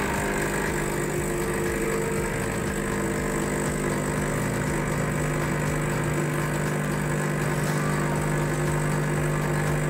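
Milesto Irina double-boiler espresso machine's pump humming steadily while it pulls an espresso shot.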